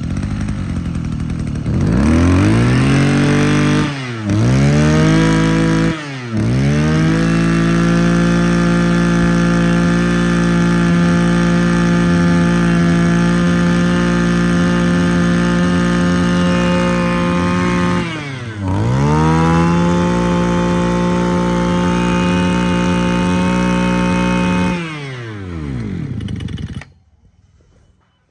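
Mitsubishi TL23 brush cutter's 23cc two-stroke engine idling, then revved up. The throttle is let off and opened again twice, held at high revs for about ten seconds, eased off once more and opened again, then it winds down and cuts out near the end.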